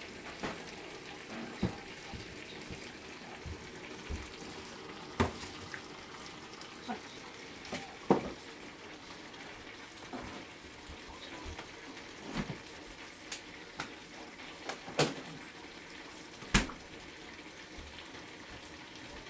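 Kitchenware clattering: more than a dozen irregular clinks and knocks of dishes or utensils over a steady hiss.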